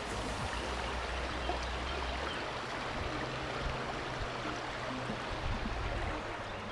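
Steady noise of flowing river water.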